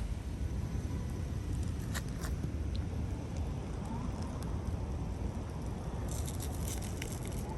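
Rainy outdoor ambience: a steady low rumble with scattered light taps and crackles, a few about two seconds in and a quick cluster of them about six seconds in.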